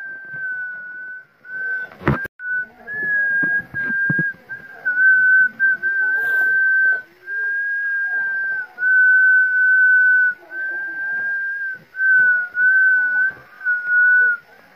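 A high, steady whistled tone held in long notes of about a second each with short breaks between them, wavering slightly in pitch. A sharp knock comes about two seconds in.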